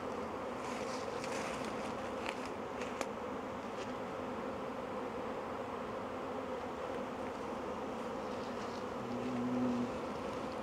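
Swarm of honey bees buzzing steadily in the air around an open hive box while the swarm is being hived. A louder, lower buzz rises briefly near the end.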